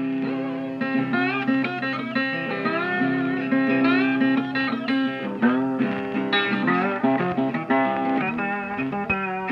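Background music: a plucked guitar playing bending, sliding notes over a steady low drone note.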